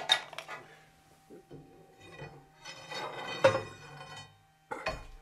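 Metal clinks and clanks of tools and the workpiece being handled at a stopped lathe's three-jaw chuck: sharp knocks at the start, a clattering, ringing stretch with the loudest knock about three and a half seconds in, and another click near the end, over a faint steady hum.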